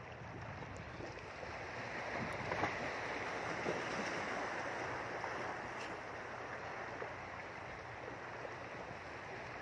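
Steady rushing of waves washing against a rocky shore, swelling a little a couple of seconds in, with a few faint clicks.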